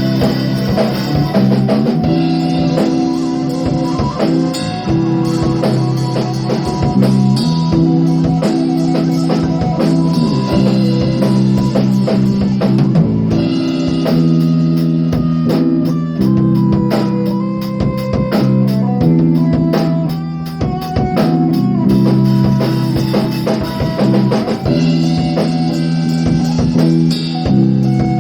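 A band playing rock music: drum kit keeping a steady beat under sustained guitar chords.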